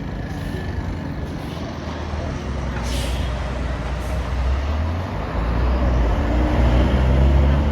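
Heavy bus engine running close by, getting louder in the second half, with a short hiss of air about three seconds in.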